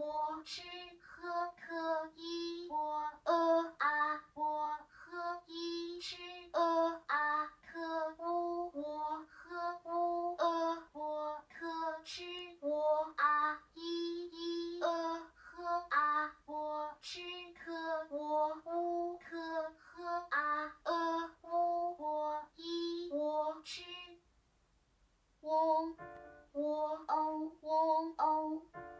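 Auditory BCI stimuli: a rapid stream of short Chinese pinyin syllables in a high voice at a nearly steady pitch, played one after another from the surrounding loudspeakers, about three a second. There is a pause of a second and a half near the end.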